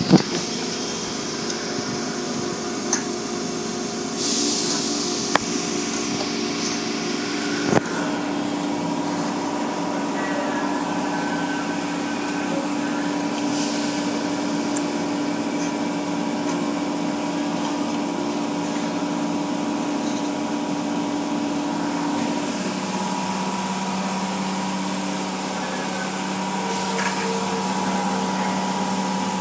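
Automatic tunnel car wash heard from inside the car: water spraying against the car while the wash machinery's motors and pumps hum steadily. The hum drops to a lower pitch about three quarters of the way through, and a few sharp knocks come in the first eight seconds, the loudest right at the start.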